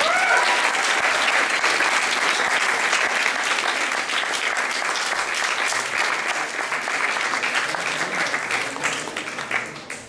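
Audience applauding: dense hand clapping that holds steady and fades away near the end.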